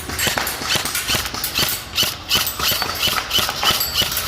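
Airsoft gun firing rapidly, a quick, even run of sharp pops at about five a second.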